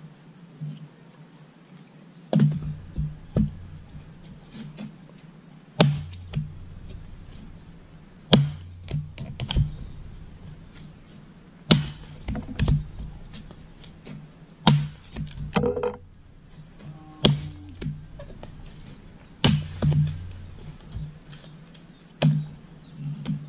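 Axe blows splitting firewood: eight sharp chops, roughly one every three seconds, several followed by lighter knocks of split pieces falling.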